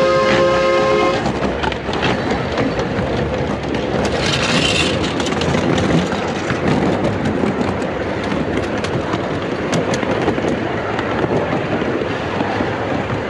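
A miniature steam locomotive's whistle sounds a steady chord of several notes and cuts off about a second in. After that, the train's steel wheels rattle and click steadily along the 15-inch gauge track.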